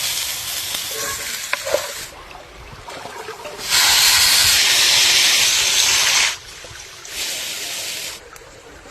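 Food sizzling as it cooks, in three stretches that start and stop abruptly, the middle one, from about four to six seconds in, the loudest.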